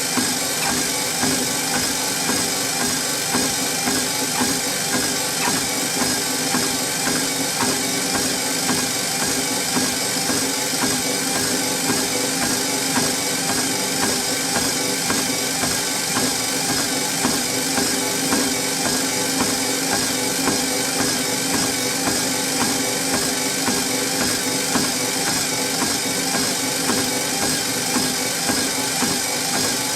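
Treadmill running with someone walking on it: a steady motor hum and whine from the drive and belt, with footfalls landing on the deck in an even rhythm.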